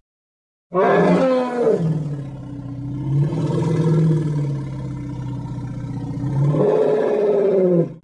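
A long, deep roar sound effect starting just under a second in: its pitch falls at first, then holds steady, swells and rises again near the end, and cuts off abruptly.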